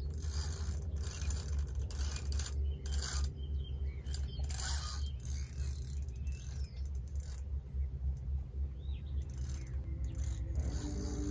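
Spinning reel worked while a hooked carp is played on a bent rod: irregular mechanical ticking and whirring from the reel, over a steady low rumble. Music comes in near the end.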